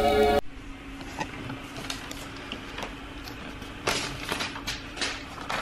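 Background music cuts off half a second in. Then comes a quiet room with a faint low hum and scattered light clicks and taps of felt-tip pens being handled on a plastic high-chair tray, a few louder ones near the end.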